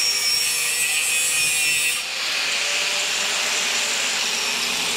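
Angle grinder cutting through thin metal tubing: a steady, loud, hissing grind with a faint motor whine underneath, changing in tone about two seconds in.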